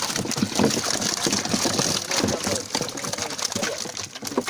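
Water splashing and sloshing in irregular bursts, with a steady hiss-like rush.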